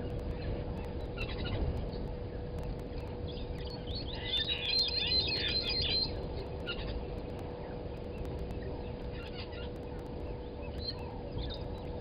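Brown-headed parrots calling in quick, high, chattering notes, densest in a burst about four to six seconds in, with scattered calls before and after. A steady hum runs underneath.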